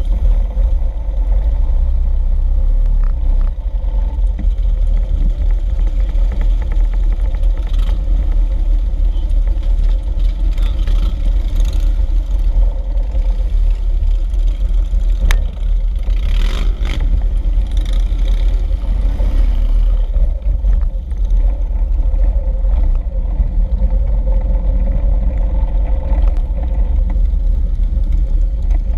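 A pack of Harley-Davidson V-twin motorcycles idling together in a loud, steady, deep rumble.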